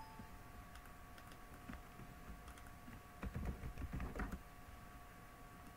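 Typing on a computer keyboard: soft, scattered keystrokes, with a denser run of them about three to four seconds in.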